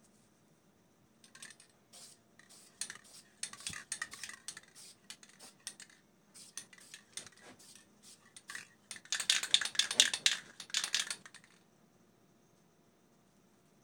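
An aerosol spray paint can rattling in irregular bursts of clicks. They start about a second in, are heaviest and loudest about two-thirds of the way through, then stop.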